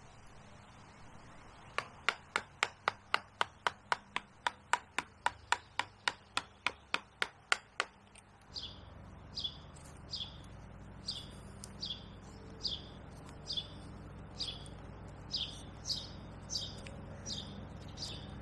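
Quick, even taps of a mallet on a carving gouge cutting into the wood of a standing tree, about four a second for some six seconds. Then a bird calls a short falling chirp over and over.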